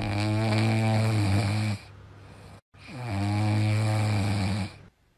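A sleeping dog snoring: two long, droning snores, each lasting nearly two seconds.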